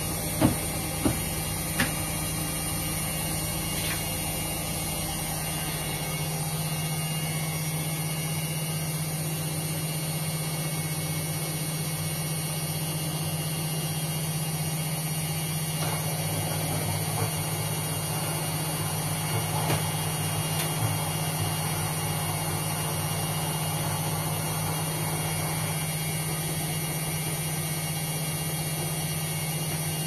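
Front-loading washing machines running with a steady motor hum. There are a few short clicks in the first two seconds.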